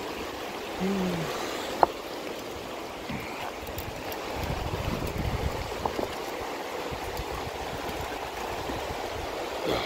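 Shallow river rushing steadily over a rocky bed. A single sharp click comes about two seconds in, and a brief low rumble about halfway through.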